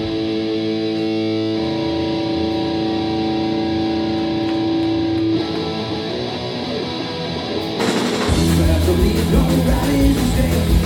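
Live punk rock band: an electric guitar lets held notes ring, then drums crash in and bass and the full band come in loud about eight seconds in.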